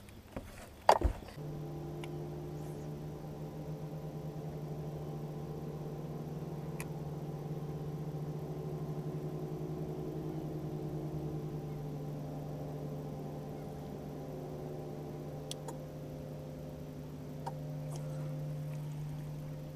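A sharp knock about a second in, then the steady electric hum of a bow-mounted trolling motor running, shifting slightly in tone now and then.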